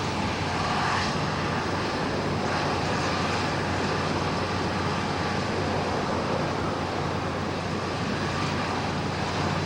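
Steady roar of gale-force onshore wind on the microphone mixed with heavy storm surf, with no single event standing out.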